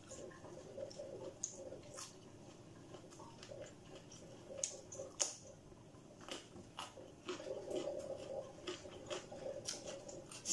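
A person chewing and eating stir-fried instant noodles close to the microphone, with many short, irregular wet mouth clicks and smacks. A steady low hum runs underneath.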